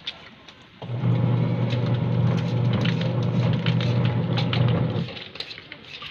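A steady low motor-like hum starts abruptly about a second in, holds one pitch, and cuts off about four seconds later, with faint scattered clicks over it.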